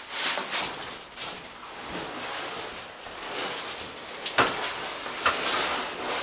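Rustling and scraping as a large cardboard box is shifted and handled, with two sharp knocks about four and five seconds in.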